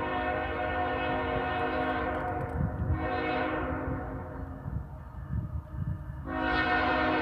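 CSX freight locomotive's air horn sounding a chord from down the line: a long blast ending about two seconds in, a short blast near three seconds, then another long blast starting about six seconds in, the closing part of the long-long-short-long grade-crossing signal.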